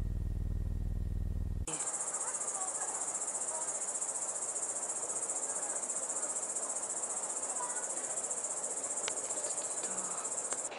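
A low, buzzing hum for the first couple of seconds, then an abrupt cut to a steady, high-pitched chirring of insects that carries on without a break.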